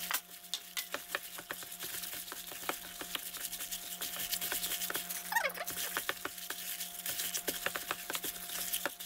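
A hand in an oiled plastic glove mixing and kneading soft yeast dough in a stainless steel bowl: quiet, irregular squishing and ticking of glove, dough and bowl, over a faint steady hum. A brief falling squeak comes about halfway through.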